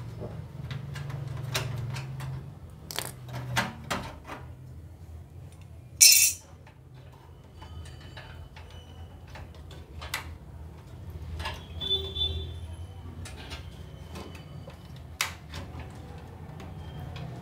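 Metal clicks, clinks and knocks of a graphics card being unscrewed and pulled out of a desktop PC case, with a short loud rasp about six seconds in, over a steady low hum.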